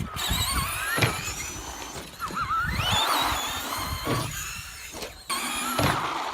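Radio-controlled cars running, their electric motors whining in a pitch that rises and falls as the throttle is worked.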